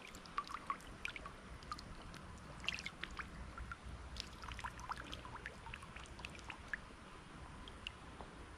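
Water trickling and dripping: a scatter of small, bubbly droplet sounds over a faint low rumble.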